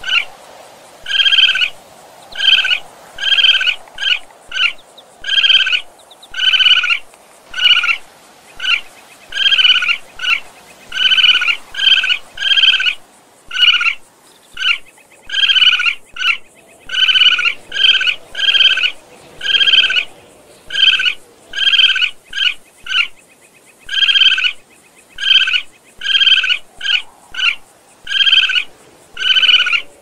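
Young raccoon making a long series of short, high-pitched chirps, about one or two a second with a few brief pauses.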